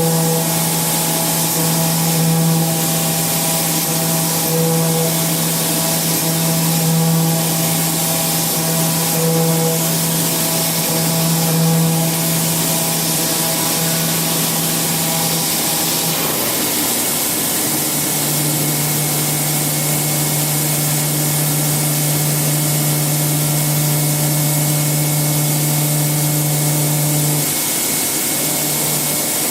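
Metal being milled by an indexable-insert milling cutter on a machine tool: a steady pitched hum over constant hiss. The tone breaks about sixteen seconds in and settles slightly lower, then drops out briefly near the end.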